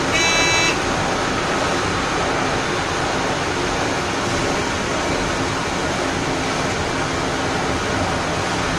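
Steady running noise of a train on the rails, travelling alongside a long freight train of hopper wagons. A brief high-pitched toot sounds once, under a second long, just after the start.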